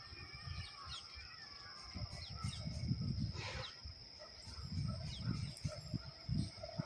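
Trackside ambience: birds chirping in short falling notes over a steady high whine, with wind gusting on the microphone. Near the end a faint train horn begins sounding in the distance.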